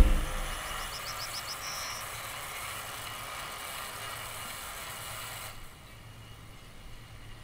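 Outdoor ambience: a steady airy hiss over a faint low hum, with a short bird trill about a second in; the hiss drops away after about five and a half seconds.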